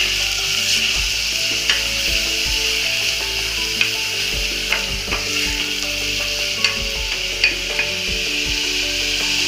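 Chopped onion and whole spices sizzling in hot mustard oil in a pressure cooker, stirred with a spatula that scrapes and taps against the pot now and then.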